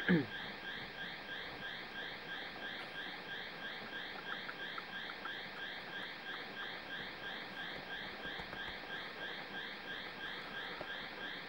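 Steady electronic chirping, about four rising chirps a second over a held high tone, with a short falling sound right at the start.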